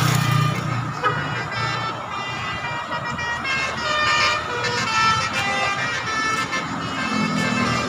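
Bus 'telolet' musical horns sounding a string of short tones that step up and down in pitch, over the low rumble of a diesel bus engine.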